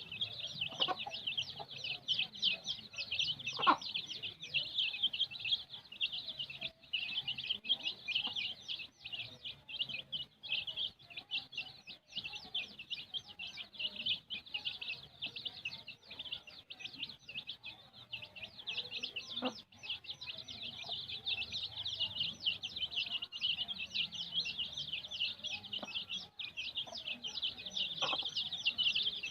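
A brood of kampung chicken chicks peeping without pause, many short, high, falling peeps overlapping several times a second.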